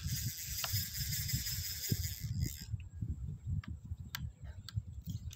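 Wind buffeting the microphone in uneven gusts, with a steady high hiss that cuts off about halfway through, then a few faint clicks.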